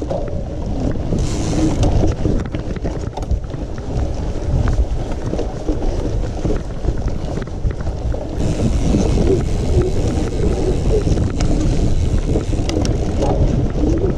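Wind buffeting the microphone of a camera riding along on a mountain bike, with scattered knocks and rattles over rough ground.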